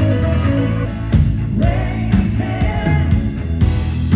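Live band playing a song: bass guitar and electric guitar over a steady drum beat, with a voice singing.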